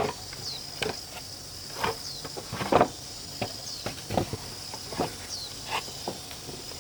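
Steady high insect drone, with a short falling chirp every second or two. Scattered short knocks and taps sound over it, the loudest nearly three seconds in.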